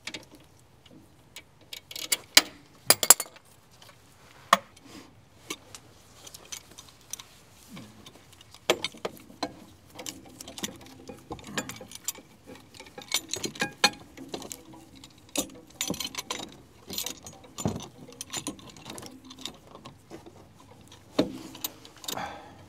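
Scattered metal clicks and clinks of hand tools against the rear disc brake caliper and its bracket, irregular and spaced out, with the loudest few about two to three seconds in.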